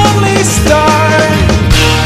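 A recorded pop love song playing as background music.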